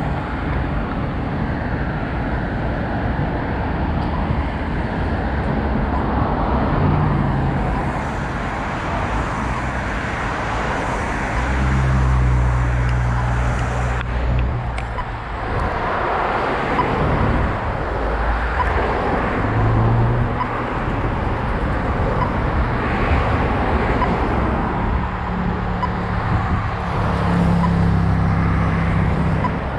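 Road traffic running by: passing vehicles' engine hum and tyre noise, with heavier vehicles coming and going several times.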